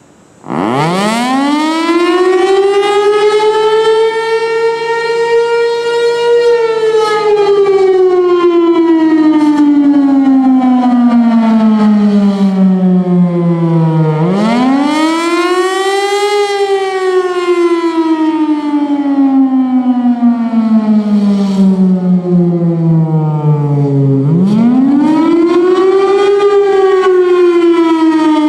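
Federal Signal Thunderbolt 1000 single-tone outdoor warning siren sounding the attack signal. It starts about half a second in and winds up in pitch for several seconds, then slowly falls. It rises and falls twice more, a wail of about ten seconds per cycle.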